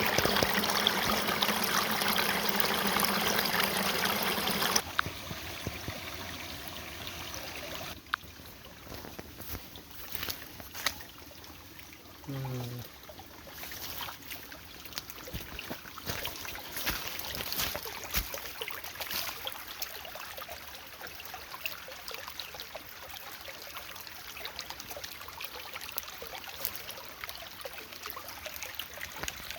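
Running water, like a stream trickling, loudest for the first five seconds and softer after that. Scattered clicks and a short falling tone are heard about twelve seconds in.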